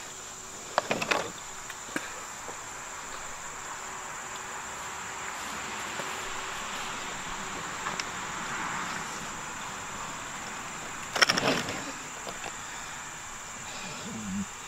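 Steady high buzzing of an insect chorus, with a few sharp knocks, the loudest about eleven seconds in.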